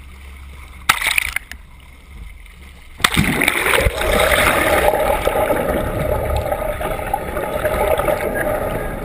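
Sea water splashing and rushing, with a couple of sharp knocks about a second in, then turning suddenly loud and steady about three seconds in.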